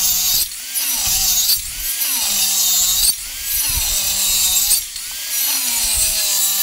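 Maktec handheld circular saw cutting into wood in repeated short passes, about five in all. The motor's pitch sags each time the blade bites and climbs again between cuts.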